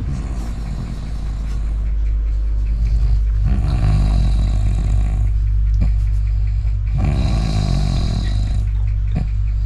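A man snoring heavily in his sleep: long, rough, rattling snores on each breath, about every three and a half seconds, over a steady low hum.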